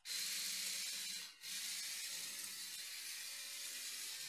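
Compressed air hissing out of a Lego Technic pneumatic system, in two long hisses with a short break about a second and a half in.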